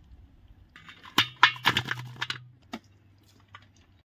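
A burst of knocks and clicks lasting about a second and a half, from raw chicken pieces being tipped into a vessel for marinating.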